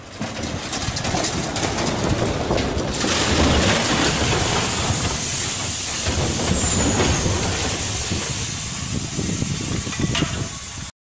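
Rockfall: boulders and rock debris tumbling and crashing down a rocky slope, a dense rumbling clatter with a loud steady hiss. It grows louder about three seconds in and cuts off abruptly near the end.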